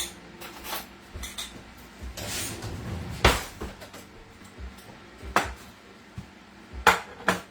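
Kitchen utensils and dishes being handled: scattered knocks and clinks, about half a dozen, with a sharper knock about three seconds in.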